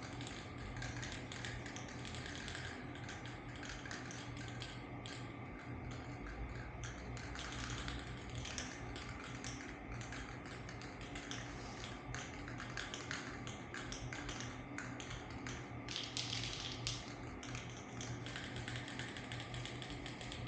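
Faint, irregular light tapping and clicking over a steady low hum, with a brief hiss about sixteen seconds in.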